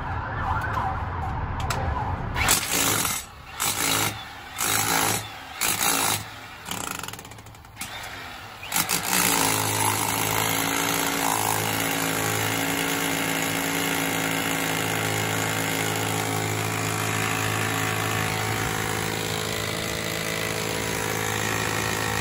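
Handheld electric rotary hammer chiselling into a concrete floor, first in about six short bursts, then running without a break from about nine seconds in.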